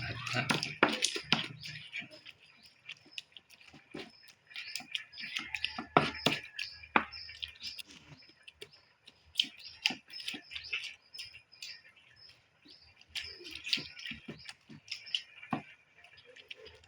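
A stone pestle grinding sambal in a stone mortar (ulekan and cobek), making irregular knocks and scrapes, with birds chirping in the background.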